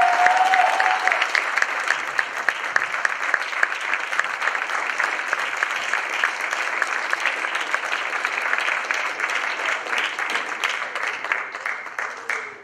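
Audience applause: dense, steady clapping that thins out and dies away at the very end.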